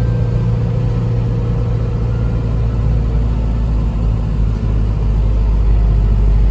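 Unimog truck's diesel engine running as the truck drives off, a loud steady low rumble that grows slightly louder towards the end.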